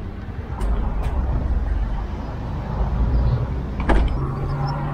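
The manual tailgate of a Skoda Enyaq being pulled down and shut, closing with a single thud about four seconds in, over a steady low rumble.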